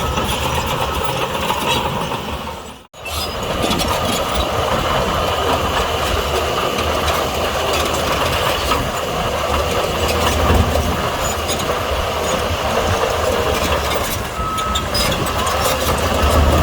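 Bulldozer at work: heavy diesel engine running with a steady clatter, which breaks off for an instant about three seconds in and carries on.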